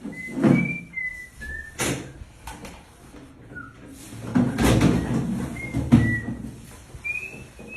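A plumber handling a bathroom fixture: several sharp knocks and clatter, the loudest about halfway through, with a few short, high whistle-like chirps between them.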